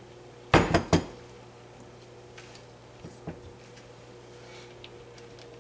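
White ceramic slow-cooker crock and spatula clattering: a quick cluster of loud knocks about half a second in, then a couple of light clicks around three seconds in.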